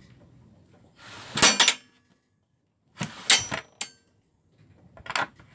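Stainless steel security-bar gate and its chrome bolt latch being worked by hand: sharp metal clacks and clicks in three bursts. The first, about a second in, starts with a short scrape; the second comes about three seconds in; the last comes near the end.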